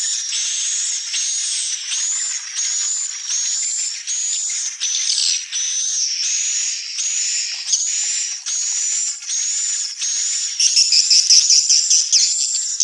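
Swiftlets calling: a steady run of short, high chirps, about two a second, turning into louder, denser twittering near the end.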